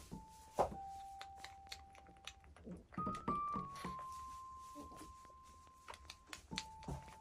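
Soft background piano music: a slow melody of single notes, each held and fading away, with a few faint knocks.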